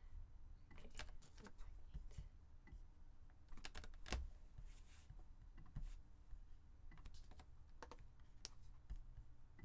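Faint, irregular typing and key clicks on a computer keyboard.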